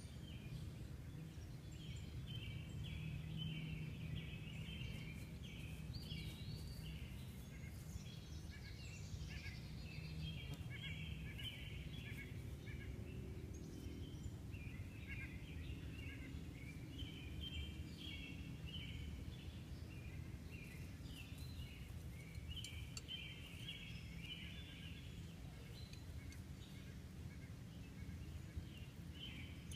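Outdoor ambience of birds chirping and singing in many short, repeated calls, over a low, steady background rumble.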